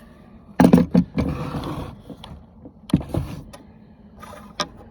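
Clicks, knocks and short rattling scrapes from a small top-handle chainsaw being handled, its plastic housing and metal parts knocking together; the saw is not running.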